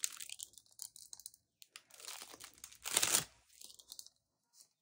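Thin plastic crinkling and rustling as it is handled, in short crackly bursts, the loudest about three seconds in.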